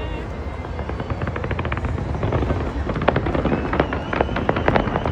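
Fireworks going off: a quick run of small crackles, then from about two seconds in a dense stream of sharp bangs and pops over a steady low rumble.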